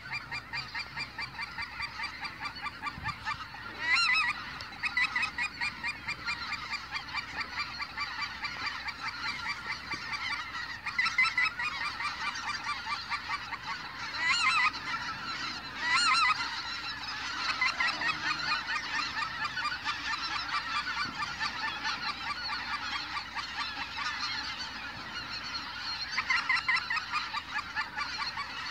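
A large flock of flying geese calling, a dense steady chorus of many overlapping honks. Now and then a louder single call stands out from the rest.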